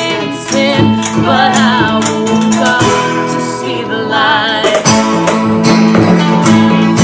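Worship song played by a small band: acoustic guitar strumming and a drum kit keeping the beat, with several voices singing, one with a wide vibrato.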